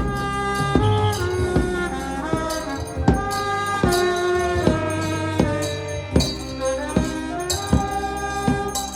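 Live band music: a melody of long held notes over a low sustained bass, with percussion struck about twice a second.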